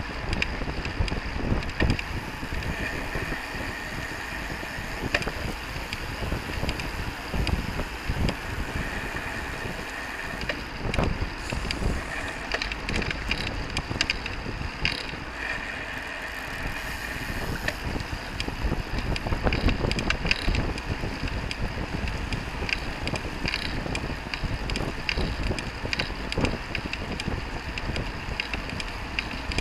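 Wind rushing over the microphone of a camera on a moving road bike among a pack of road racing bicycles, with steady road noise and scattered sharp clicks and knocks.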